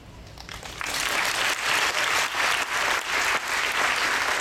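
Audience applauding, the clapping breaking out about a second in and going on steadily.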